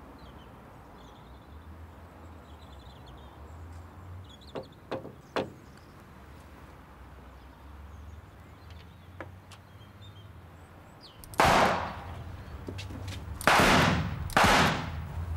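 Three revolver shots, one about eleven seconds in and two close together near the end, each ringing briefly. Earlier there are three light taps and faint birdsong.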